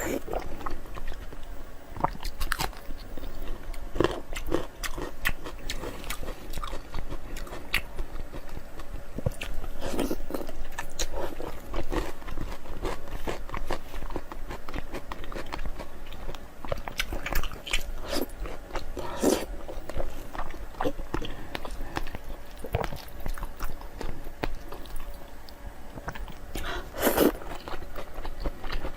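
Close-miked eating: a person biting and chewing food, with irregular sharp crunches and mouth clicks throughout, a few louder crunches among them.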